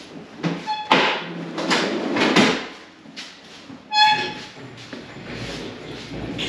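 Steel engine crane being rolled and shifted over a concrete floor: rough rolling and rattling noise, with two short high squeaks about a second in and again about four seconds in.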